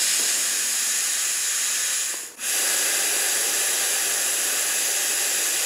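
Air hissing steadily out of a motorcycle's front tubeless tire through the valve stem as the tire is deflated. The hiss breaks off briefly a little over two seconds in, then carries on.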